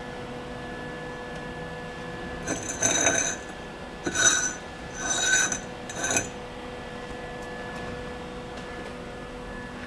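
Steel tube sliding and scraping inside a slightly larger steel tube, metal rubbing on metal with a ringing edge, in four short bursts.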